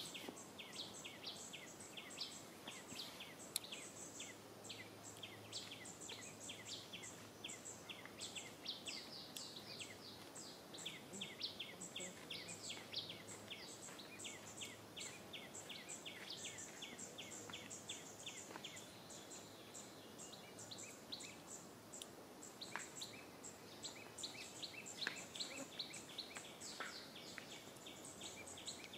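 Small birds chirping in the background: many short, high chirps in quick succession, thinning out about two-thirds of the way through and picking up again near the end, over a faint low hum.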